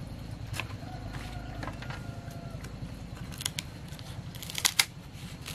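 Large green wrapping leaves rustling and crackling as they are handled, with sharp clicks about three and a half seconds in and a louder pair near the end, over a steady low rumble.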